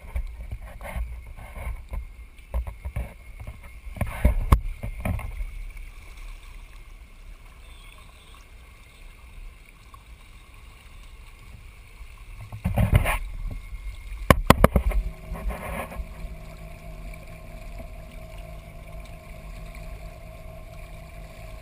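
Water sloshing and splashing against a boat's side close to the microphone, broken by sharp knocks and bangs, loudest about four seconds in and again past the middle. A steady low hum sets in about three quarters of the way through.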